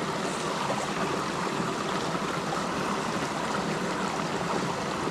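Small mountain brook running steadily over rocks, with a short cascade pouring into a pool.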